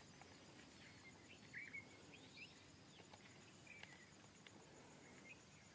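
Near silence: a faint steady insect trill, with a few faint short chirps about one and a half, two and a half and four seconds in.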